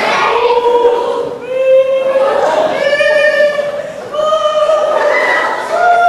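A group of voices singing a slow melody in long held notes, the pitch stepping gradually upward.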